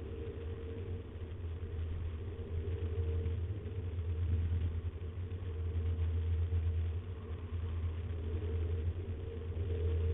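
Steady low hum and rumble that slowly swells and fades, with no distinct events.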